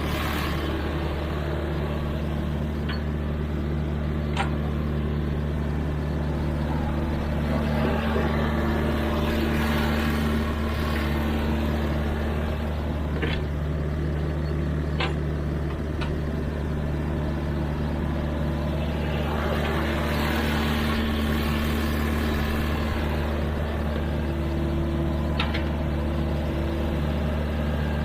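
Sany mini excavator's diesel engine running at a steady speed while working, with a handful of sharp metallic clanks at irregular moments.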